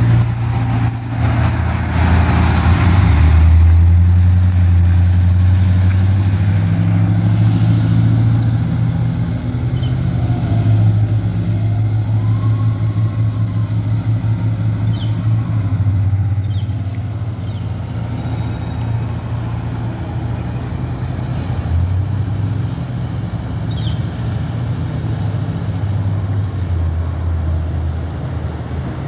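Ice cream truck engine running as the truck drives past, loudest a few seconds in, then a steady low engine hum as it moves off.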